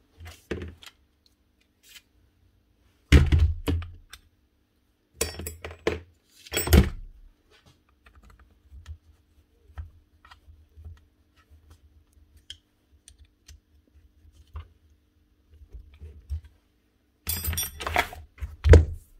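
Knocks and clunks of a Hitachi CN16SA nibbler's head and guide being handled and set down on a hard floor, loudest about three seconds in and in a clatter near the end. In between come light, scattered clicks as an Allen key turns the guide's grub screw.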